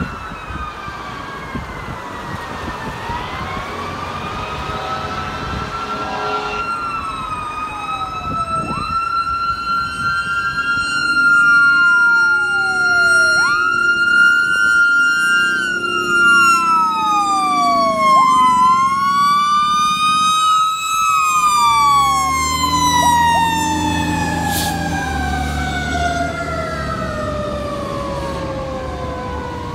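Fire engine's Federal Q mechanical siren screaming at a high steady pitch, then winding down in one long falling tone over the last several seconds. A second siren sweeps up and down alongside it, and a heavy engine rumble comes in as the truck passes in the second half.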